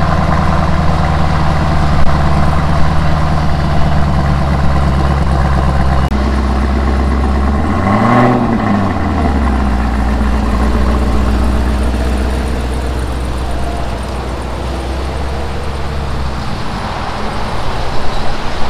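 Chevrolet Camaro ZL1's supercharged 6.2-litre V8 idling just after a cold start, the idle note settling about six seconds in. There is one short rev blip about eight seconds in. Near the end the car pulls away at low speed.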